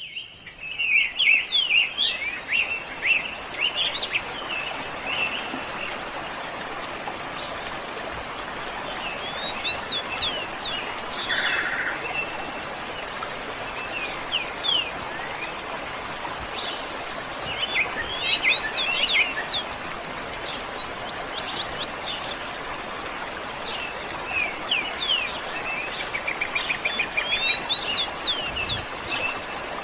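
Birds chirping and calling in scattered flurries of quick, high sweeping notes over the steady rushing of a waterfall.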